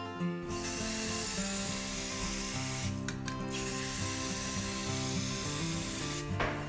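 Rust-Oleum Stops Rust gloss enamel aerosol spray paint can spraying onto brick in a steady hiss. The hiss starts about half a second in, breaks off briefly around three seconds, then runs again and cuts off near the end.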